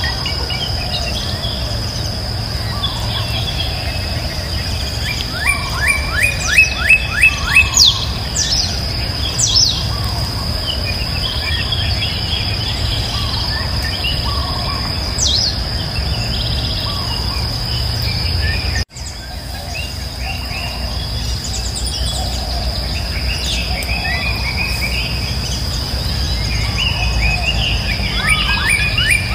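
Outdoor rural ambience: a steady high insect drone with birds calling over it, including a loud run of quick repeated chirps about six seconds in and again near the end, and a few scattered whistles.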